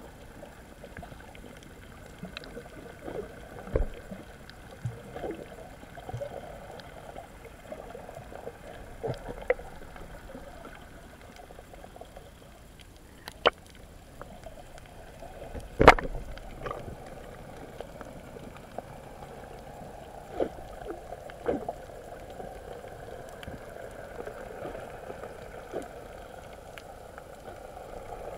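Muffled water noise heard underwater: a steady low wash with scattered knocks and clicks, the loudest knock about 16 seconds in.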